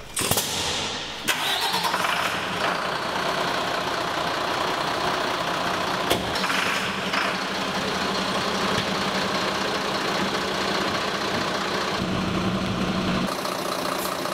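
Diesel engine of a Mercedes-Benz HLF 20/16 fire engine being started, then running at a steady idle. There is a sharp click at the start and another about six seconds in.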